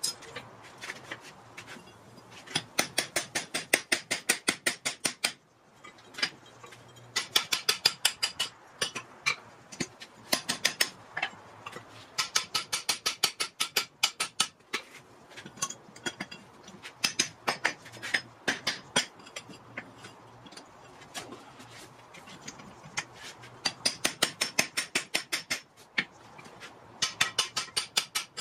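Hand hammer striking a hot Atlantic 33 steel hammer head on an anvil in fast runs of sharp, ringing blows, about six runs of a few seconds each with short pauses between. The steel has a bar driven through its eye, so the blows are drifting the eye of the new rounding hammer.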